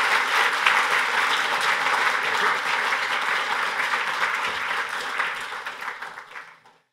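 Audience applauding, a dense crowd of hand claps that tapers off near the end and then cuts off suddenly.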